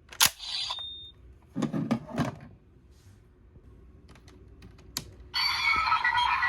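Plastic clicks and rattling as the DX Bujin Sword Buckle toy is handled, then about five seconds in its built-in speaker starts playing loud electronic sound effects.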